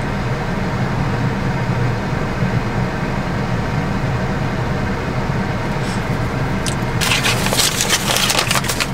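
Steady low hum of a car running, heard from inside its cabin. About seven seconds in, a paper fast-food bag starts crackling and rustling as it is handled.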